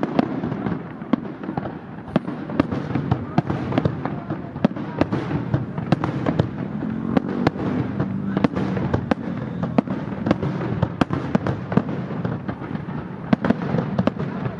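Aerial fireworks display: a dense, continuous volley of shell bursts and sharp bangs, several a second, over a steady rumble of crackling.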